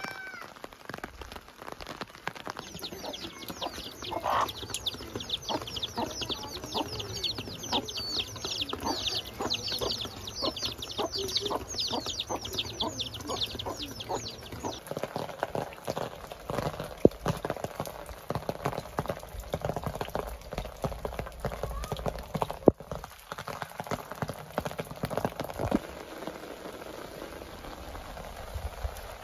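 A brood of domestic chicks peeping: many quick, high, falling chirps in a dense chorus that stops about halfway through. A rustling, crackling noise with scattered sharp clicks follows.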